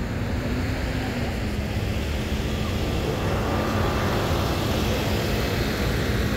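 Steady low rumble of outdoor background noise, with a faint hum that fades out in the first second or so.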